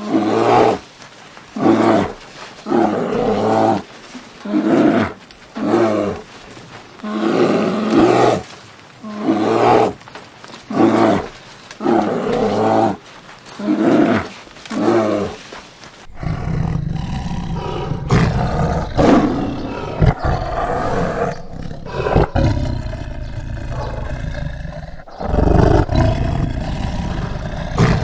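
A large animal roaring in a series of calls, roughly one every second and a half. After about sixteen seconds it gives way to a continuous deep growling rumble that swells louder now and then.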